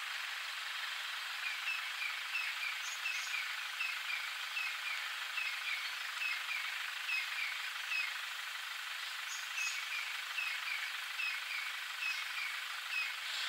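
Short, high chirping calls from a small animal repeat two or three times a second over a steady hiss, starting about a second and a half in.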